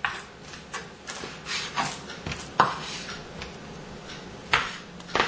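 Chef's knife cubing raw chicken breast, the blade knocking on the cutting board in a string of irregular taps with slicing sounds between them.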